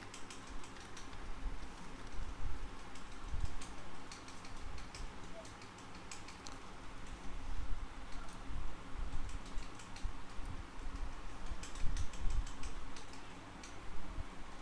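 Computer keyboard typing: irregular key clicks in short clusters with pauses between.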